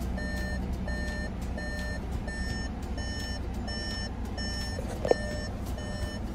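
2018 Volkswagen Atlas warning chime beeping about twice a second over a low steady hum, the car's alert that a door is open; a higher note joins the beeps about three seconds in. A single click comes about five seconds in.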